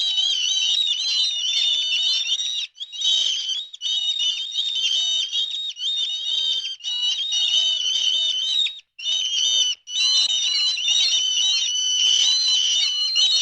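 A dense chorus of high-pitched chirping and twittering from many small birds calling at once. It breaks off briefly a few times.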